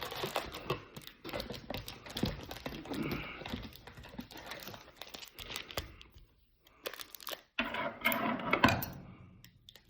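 Trading-card pack wrappers crinkling and rustling as packs are handled and pulled from the box, with small clicks and knocks; the loudest burst of crinkling comes about eight seconds in.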